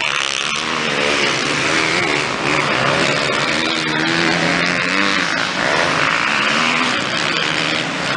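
Several motocross bikes racing, their engines revving up and down over one another without a break.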